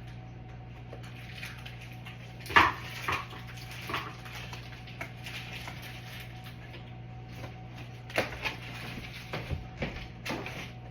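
Kitchen clatter: scattered knocks and clanks of dishes, pans and cupboard doors being handled, the loudest about two and a half seconds in and a run of several near the end, over a steady low hum.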